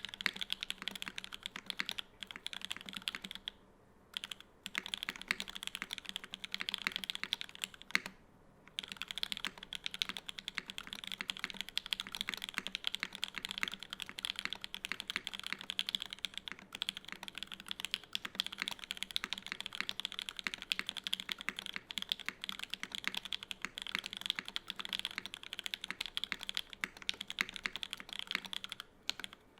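Continuous fast typing on a KFE CE mechanical keyboard with an aluminum plate and lubed CannonKeys Lavender linear switches under GMK keycaps: a dense stream of keystrokes, broken by brief pauses about four and eight seconds in.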